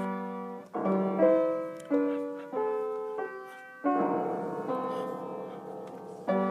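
A piano's keys struck in uneven clusters of several notes at once, about eight times, each left ringing and dying away: a dog pawing at the keyboard rather than a tune being played.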